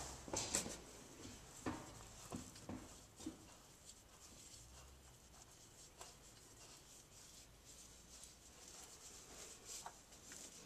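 Faint handling noise: light rubbing and a few small knocks in the first three seconds, then only scattered soft ticks, over a low hum that drops away about six seconds in.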